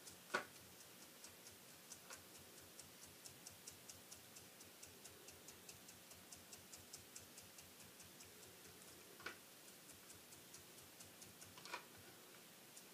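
Faint, quick tapping of a stippling brush dabbing ink onto the edges of a cardstock strip, about three light taps a second, with a few slightly louder taps now and then.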